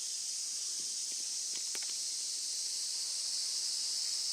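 Steady, high-pitched insect chorus shrilling without a break, with a few faint ticks about one and a half seconds in.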